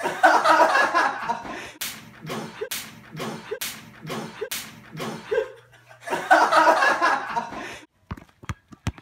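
A group of young men laughing, with sharp hand slaps at about two a second between the bursts of laughter. Near the end come a few short, separate knocks of a basketball bouncing on pavement.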